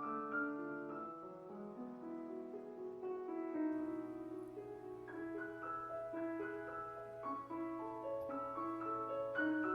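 Solo piano background music, several notes sounding together and changing throughout.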